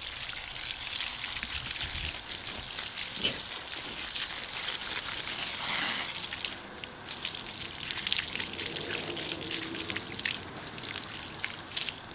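Water from a garden hose spraying steadily onto a dog's wet coat and splashing onto concrete as the dog is rinsed.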